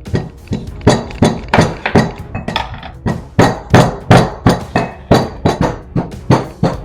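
Pestle pounding ginger in a mortar, a steady run of sharp strikes about three a second.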